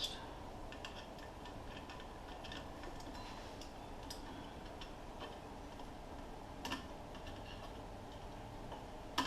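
Light metallic clicks and taps from hand tools, a socket or wrench being fitted to and tried on an axle nut. The clicks come at irregular intervals, with a few sharper ones about four seconds in, near seven seconds and at the end.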